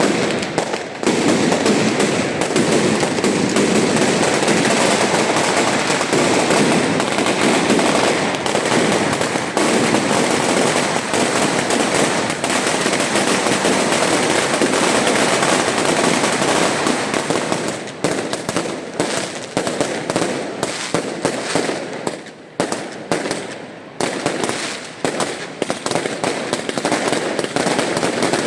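Fireworks going off in a dense, continuous barrage of rapid bangs and crackling, which thins about eighteen seconds in to separate, quick bangs with brief gaps between them.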